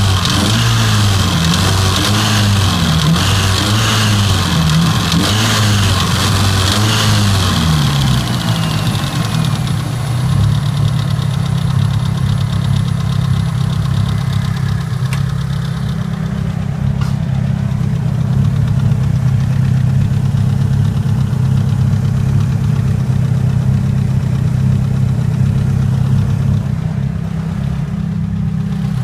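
Mitsubishi Lancer Evolution IX's four-cylinder engine is blipped up and down about once a second for the first eight seconds or so, then idles steadily. Its noise, heard only once the car has been driven a few miles, is one the owner cannot tell apart as valve tick or rod knock.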